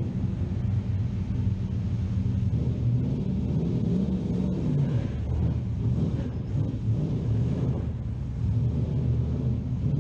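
Holden Torana SL/R 5000 race car's V8 engine burbling at low speed through a tunnel, its note rising and falling a little with small throttle changes.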